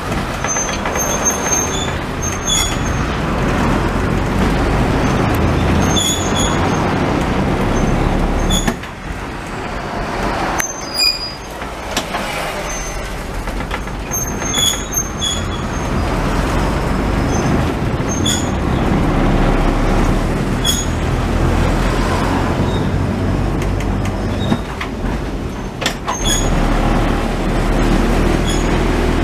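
Vintage tramcar running along street track, heard from inside the cab: a steady low rumble of the motors and wheels on the rails, with short high squeaks and clicks every second or two. The sound eases off briefly about nine seconds in.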